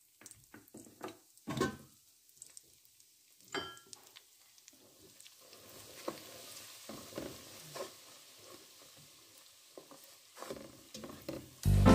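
A spoon stirring ground ogbono and crayfish into hot palm oil in a stainless steel pot: scattered scrapes and clicks of the spoon against the pot over a faint sizzle. Music comes in loudly near the end.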